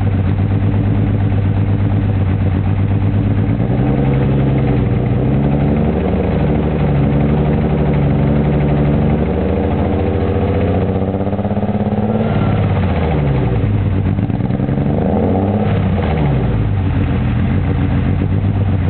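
BMW M3 straight-six engine running with a misfire, mostly at a steady idle, with the revs rising and falling a few times in the middle.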